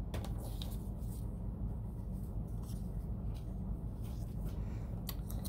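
Faint rustling and light taps of construction paper strips being pressed and slid into place on a tabletop, over a steady low hum.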